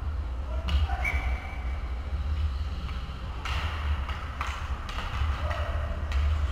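Ice hockey rink sounds: skates scraping on the ice and a few sharp knocks of sticks and puck, over a steady low rumble. A brief high tone sounds about a second in.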